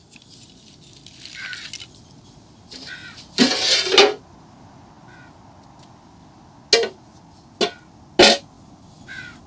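A steel lid scraped into place on a metal cooking pot, then a wooden spatula knocked three times on the lid.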